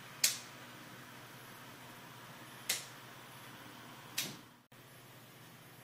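Three sharp, short clicks a couple of seconds apart over a steady hiss, with no thunder. About four and a half seconds in, the hiss cuts out for a moment and comes back slightly quieter.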